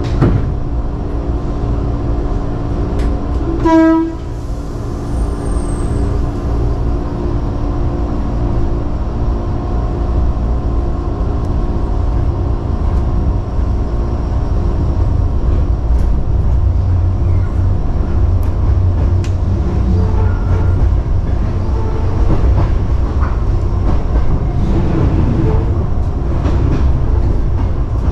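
Sanyo Electric Railway 3000-series electric train pulling away and gathering speed, heard from the cab: steady motor and running noise over a low rumble that grows later on, a short loud tone about four seconds in, and a few wheel clicks over rail joints and points.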